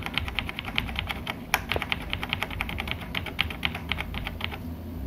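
F12 key on a desktop computer keyboard tapped rapidly and repeatedly, several clicks a second, stopping about four and a half seconds in: the boot-menu key being pressed while the PC restarts.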